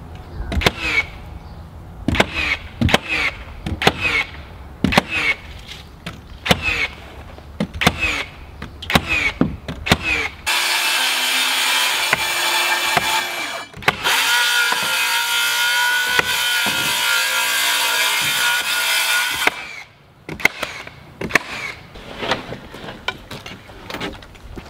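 Nail guns firing into OSB sheathing, a sharp shot about every half second to second. About ten seconds in, a power saw cuts through OSB with a steady high whine for some nine seconds, with a short break near the middle. Then the nailing resumes.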